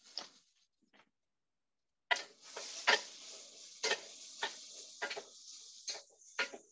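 Vegetables sizzling in a sauté pan on medium heat, the hiss starting about two seconds in, with a utensil knocking and scraping against the pan several times as they are stirred.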